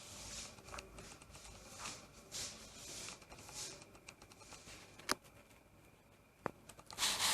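Faint rustling and handling noises, with a sharp click about five seconds in and a smaller one a second and a half later.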